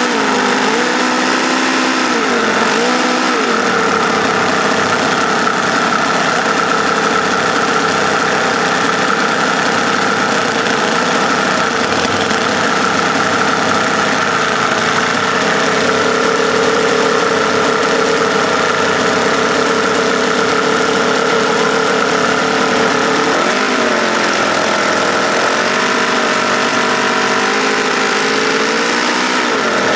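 Small homemade V4 model engine running at a steady speed. Its pitch sags and recovers in the first few seconds, then wavers up and down again over the last several seconds as its speed changes.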